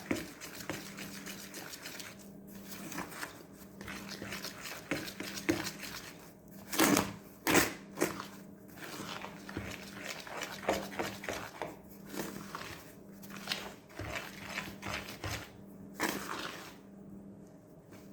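A utensil scraping and knocking against a mixing bowl as liquid is stirred into flour to make bread dough, with a few louder knocks about seven seconds in and again near the end, over a faint steady hum.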